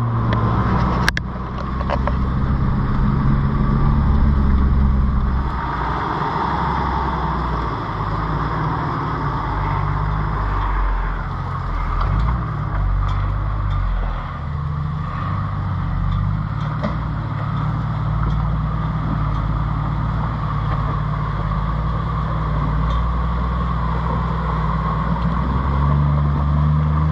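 Toyota LandCruiser 80 Series four-wheel drive running steadily as it drives over a rough dirt track, its engine note shifting with the throttle. A sharp knock comes about a second in.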